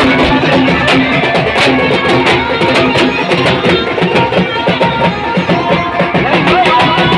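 Brass band playing loud, dense music, with drums beating a fast rhythm.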